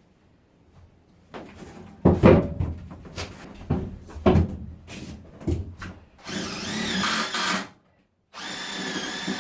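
Knocks and clatter of handling plywood, then a power drill driving screws through the plywood subfloor into the bus's steel floor, running steadily twice, the second run starting near the end. The screws are stripping out in the thick metal.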